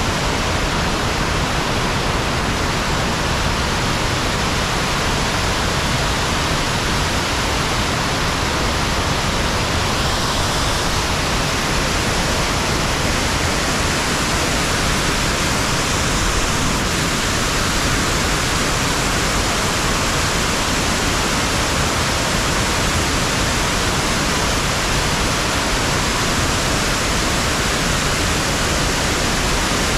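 Waterfall pouring: a loud, steady rush of falling water that does not change.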